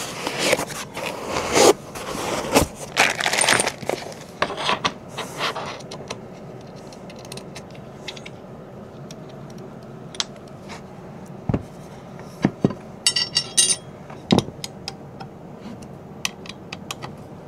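Cardboard and packing foam rustling as a rotary attachment is lifted out of its box, followed by scattered clicks and knocks of small metal parts being handled during assembly, with a brief metallic jingle about three-quarters of the way through.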